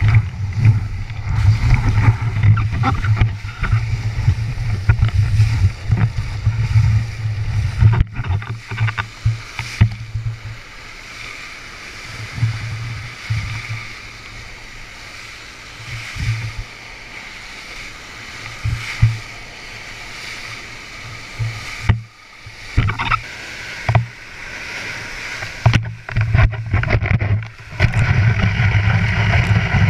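Whitewater of a river standing wave rushing and splashing over a board-mounted action camera, a heavy low churning rumble with sharp splashes. It eases to a quieter rush for several seconds in the middle, then turns loud and churning again near the end.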